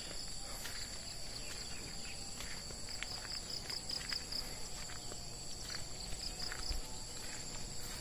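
Insects droning steadily at several high pitches, with a run of quick chirping pulses about three seconds in. Light footsteps on a dirt trail tick in between.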